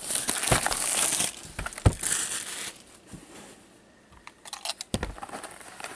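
Plastic shrink wrap crinkling and tearing as a sealed hockey card hobby box is unwrapped by hand, with a few light knocks of the box being handled. The rustling dies down about halfway through, then comes back as scattered crinkles with a soft knock near the end.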